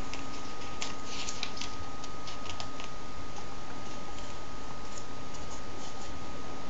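Glossy comic-book pages being handled and turned over by hand: a cluster of quick papery flicks and rustles in the first few seconds, then a few lighter ticks, over a steady hiss with a constant faint high whine.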